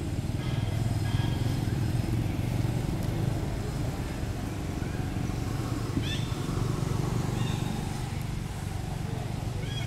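Steady low rumble of vehicle engine noise, with a few short high chirps over it; the clearest is a quick falling whistle about six seconds in.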